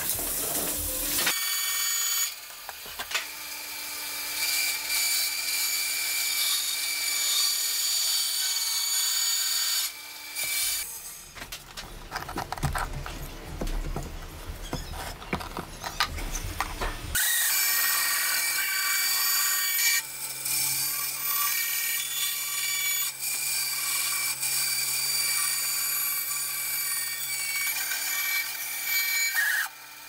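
Woodworking power tools working pine boards, with a quieter stretch of hand handling of the wood partway through. From about halfway, a bandsaw hums steadily as it cuts the board.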